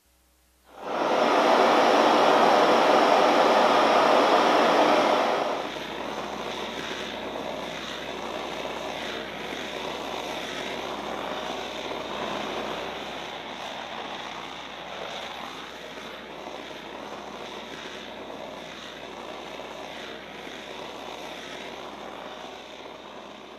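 Handheld gas blowtorch burning with a steady rushing noise. It starts suddenly just under a second in, is loud for about five seconds, then continues at a lower level and fades near the end.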